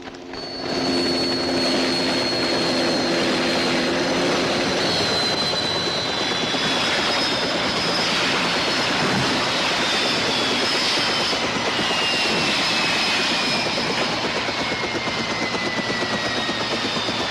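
Aircraft turbine engine running loud and steady, with a high whine that slowly falls in pitch as it passes.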